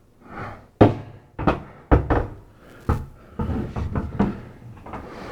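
Knocks and clunks of a portable platform scaffold's deck panel and frame parts being handled and fitted into place. They come as a string of sharp knocks, the loudest about two seconds in.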